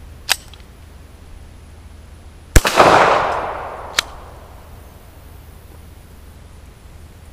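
A single shot from a 9mm pistol, a Stallard Arms JS-9, about two and a half seconds in, its report echoing away over a couple of seconds. Short sharp metallic clicks come just before it and about a second and a half after it.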